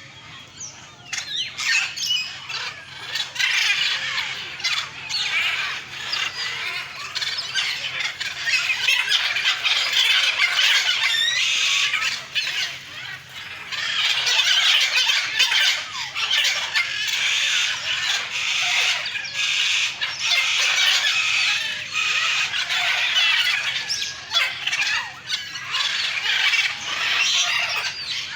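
Aviary birds calling and squawking continuously in many overlapping, high-pitched chirps and squeals, easing briefly about halfway through.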